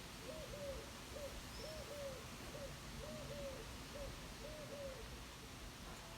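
A pigeon cooing: a repeated phrase of short, low, hollow coos, alternating pairs and single notes, over a faint steady hiss of wind. One brief high chirp from a small bird sounds about a second and a half in.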